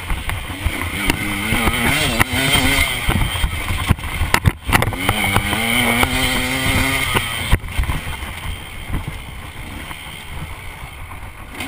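KTM dirt bike engine revving up and down as the bike rides a rough trail, its pitch climbing and holding a little past the middle. A couple of sharp knocks from the bike over rough ground sound midway.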